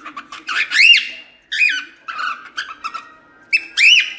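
Cockatiel singing: quick chattering clicks, then several loud whistled notes that rise and fall in arches, with softer chatter between them.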